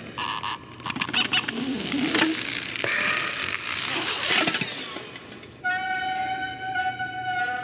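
Cartoon sound effects: a busy run of clicks, knocks and rattles, then a steady pitched tone from about six seconds in.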